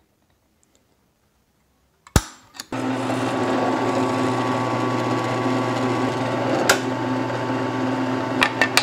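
A single sharp click about two seconds in. A drill press then starts and runs with a steady motor hum while drilling a hole through a steel tab, with a few small clicks near the end.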